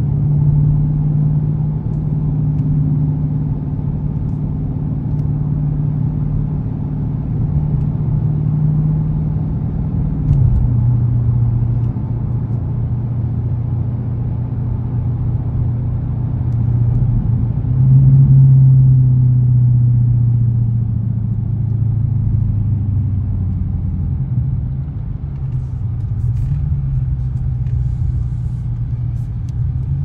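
The 6.4-litre 392 HEMI V8 of a 2021 Dodge Scat Pack, heard from inside the cabin while driving at town speed. It makes a steady low drone with road noise under it. The engine note drops in pitch about ten seconds in, and it swells louder for a couple of seconds just past halfway before settling again.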